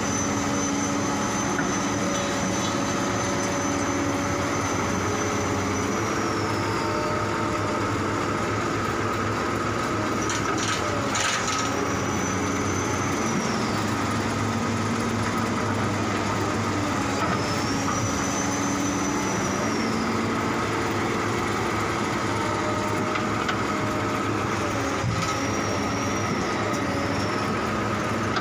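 Heavy diesel engine of a tracked log loader running steadily, its pitch shifting with the work, with a high whine that comes and goes several times and a short clatter about eleven seconds in.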